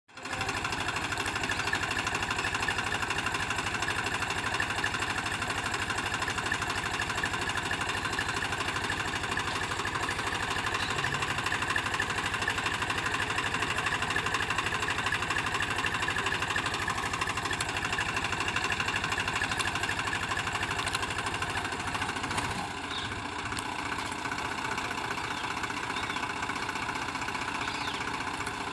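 Swaraj 735 FE tractor's three-cylinder diesel engine running steadily while hitched to a heavily loaded sand trolley, the load heavy enough to lift the tractor's front wheels. The engine note eases off slightly about three quarters of the way through.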